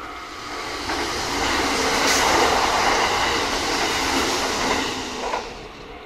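Kintetsu Nara Line train passing over a level crossing: its wheel and running noise swells over about a second, stays loud for about three seconds and fades away shortly before the end.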